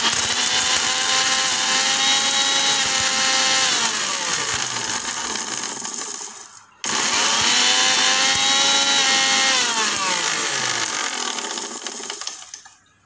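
Butterfly mixer grinder's motor running at full speed with rock salt rattling and crushing in the steel jar. About six seconds in it winds down in pitch and stops, starts again straight away, then winds down to a stop near the end.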